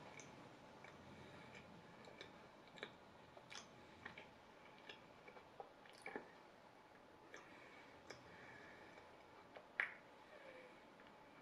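Near silence: room tone with faint, irregular small clicks and ticks, the sharpest one near the end.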